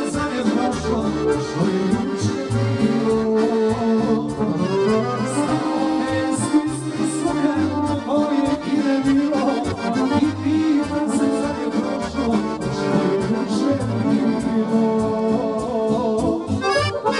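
A Dallapè chromatic button accordion playing a folk tune: a held melody with chords over pulsing bass notes.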